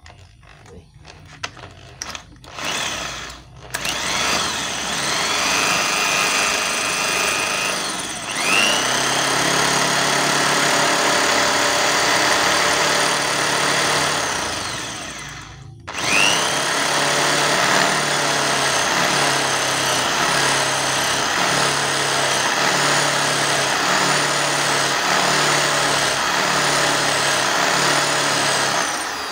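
Corded electric drill boring through the steel of a motorcycle's gear-shift pedal and shaft with a larger bit, widening a pilot hole so the loose gear shift can be fixed. After a few brief bursts it runs at speed for about twelve seconds and stops briefly, then rises in pitch as it spins up again and runs until it winds down at the very end.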